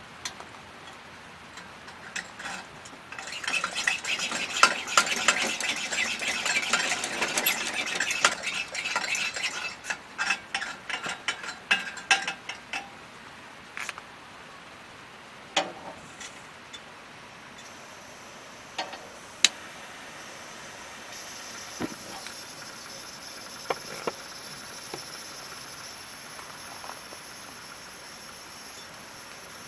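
A utensil stirring briskly in a bowl: a fast run of clinks against the bowl for about ten seconds, then a few separate clinks and knocks.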